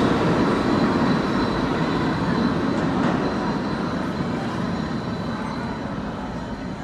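R46 subway train pulling out of the station, its wheel and motor rumble fading steadily as it moves away down the tunnel, with a thin, steady high wheel squeal over the top.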